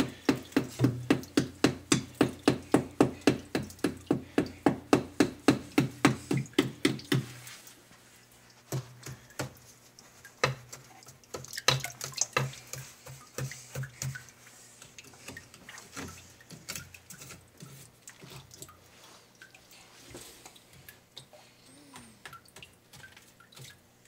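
Calcium-crusted sump pump pipe knocking in a quick, even rhythm, about four knocks a second, for the first seven seconds or so. After that come scattered lighter clicks and scrapes as the crusted pump and pit are worked at.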